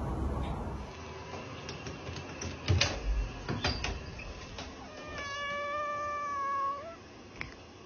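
A cat gives one long, steady meow of nearly two seconds, a little over five seconds in, rising slightly at its end. Before it come a few sharp knocks, the loudest about three seconds in.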